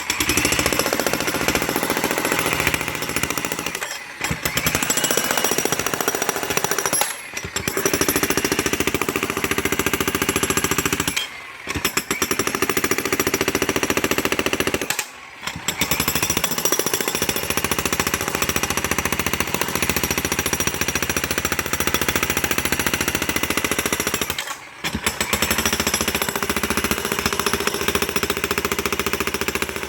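Jackhammer breaking up concrete, running in long stretches of rapid, even hammering with five brief pauses.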